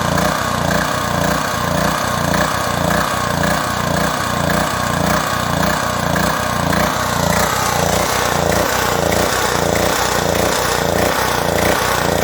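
PowerMate Pro Force 2500-watt generator's small engine running with a surging, hunting speed, its note rising and falling about twice a second. This surging is the sign of a carburetor fault, and the carburetor is what gets taken off to fix it.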